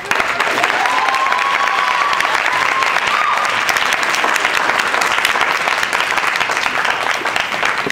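Audience applauding steadily throughout, with one voice giving a drawn-out whoop between about one and three seconds in.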